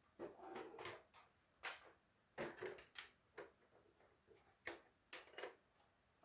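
A quiet run of irregular clicks, knocks and short scrapes of hard plastic parts being handled, about a dozen in loose clusters, the loudest about a second and a half and two and a half seconds in.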